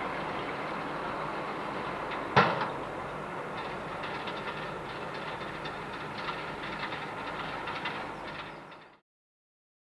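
Ford 7710 tractor and New Holland 644 round baler running, a steady mechanical clatter with one sharp knock about two seconds in. The sound fades out near the end.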